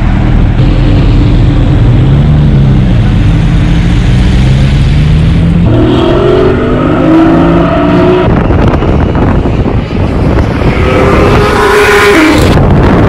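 Porsche sports car engines revving and accelerating hard, one car after another, the pitch climbing through the revs. Near the end another car's rising engine note stops suddenly.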